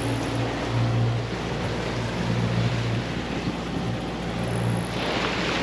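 Sailboat motoring under way: a low engine drone that swells and fades every second or so, over a steady hiss of wind and water.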